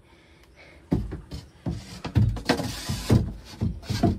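A thin sheet of 7 mm plywood knocking and scraping against timber framing as it is fitted into place, a series of irregular thumps starting about a second in.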